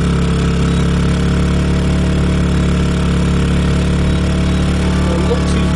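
Generac iQ2000 inverter generator running steadily under the load of an electric space heater, a constant engine hum.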